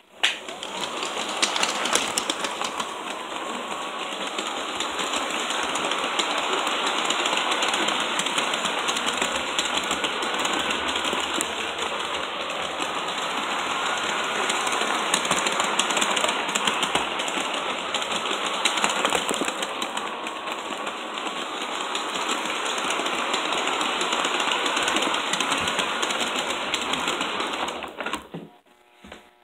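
LGB G-scale model train running on its track, heard close up: a steady whirring motor and gear drive with the rattling clatter of the wheels on the rails. It starts suddenly and stops near the end.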